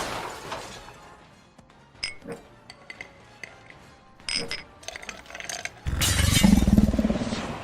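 Glass shards clinking and tinkling in scattered bright pings as they fall and settle after a shatter. Near the end a sudden loud rushing blast with a deep rumble.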